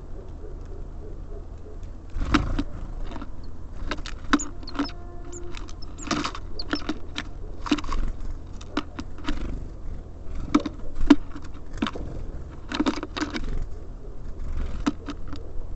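Small birds feeding at a bird feeder: irregular clicks and taps of beaks and feet on the feeder and seed, many of them, with a few very brief high chirps. A steady low rumble runs underneath.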